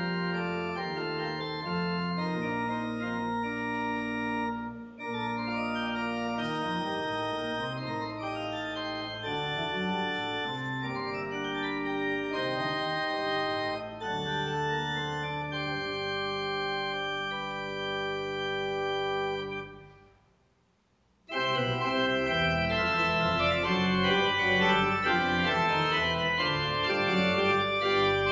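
Two-manual church organ playing slow, sustained chords over a low bass line. About two-thirds of the way through the music stops for about a second, then comes back a little louder and fuller.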